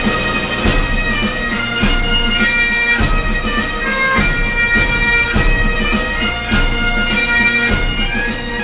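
Highland bagpipes playing a march tune over their steady drone, with drums beating a regular rhythm underneath.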